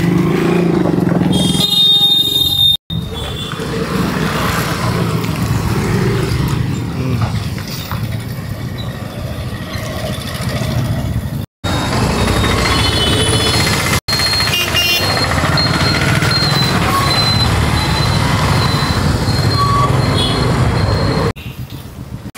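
Busy street noise with vehicle engines running, cut off abruptly for an instant a few times.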